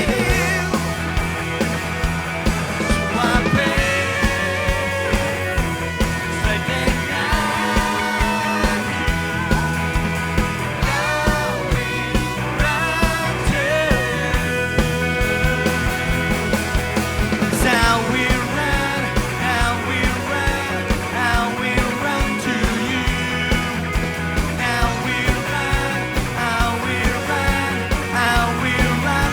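Live rock-style worship band playing: drums keep a steady beat under a moving bass line, with a bending melodic lead on top.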